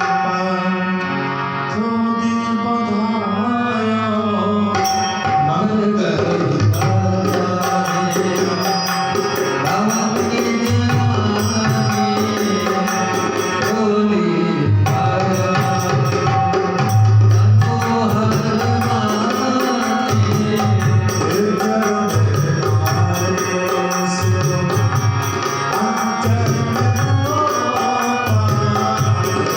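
Dholak drumming in a quick rhythm, with its deep bass strokes and crisp 'tanak' slaps, over a sustained melodic accompaniment.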